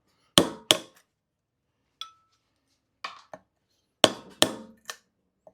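Hammer striking a sharp tool wedged behind the permanent magnets of an electric scooter's hub-motor rotor, knocking them loose. About eight sharp metallic strikes, several in quick pairs, one leaving a brief ring.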